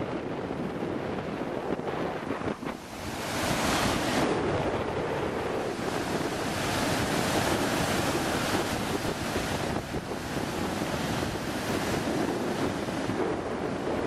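Big ocean swell breaking on the shore: a continuous wash of surf that swells louder about three seconds in as a wave breaks. Wind buffets the microphone throughout.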